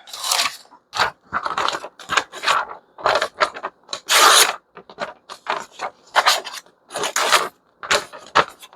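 Freshly sharpened small cleaver-shaped knife slicing through paper in a series of short, irregular strokes, with one longer cut about four seconds in: a paper test of the new edge.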